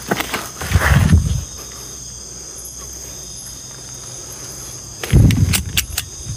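Crickets trilling steadily, with a burst of footsteps and rustling in the first second and a half and another burst of knocks and rustling about five seconds in.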